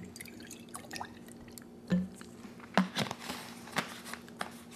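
Milk being poured from a plastic bottle into a glass jar, with a soft trickle and small clicks and taps of the bottle and jar.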